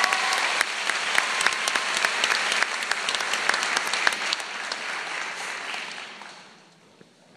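Audience applauding, with many sharp individual claps close to the microphone; the applause dies away about five to six seconds in.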